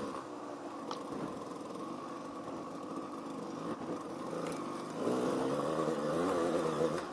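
Motorcycle engine running on the trail, its revs rising and falling, getting louder about five seconds in.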